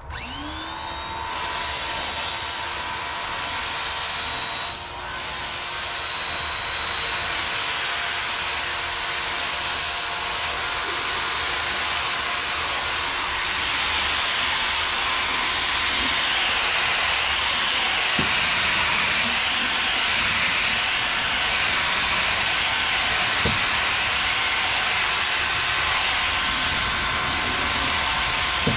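Pressure washer starting up, its whine rising within about a second to a steady high tone. It then runs on steadily with a hiss of water as a wheeled multi-jet undercarriage sprayer blasts the underside of a pickup truck.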